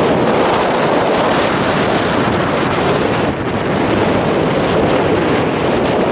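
Loud, steady wind noise buffeting the camera microphone, a constant rushing with a brief dip about three seconds in.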